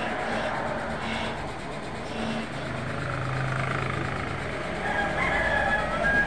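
Road traffic passing outside, loudest near the end as a large truck goes by, with a high wavering tone over it at the same time.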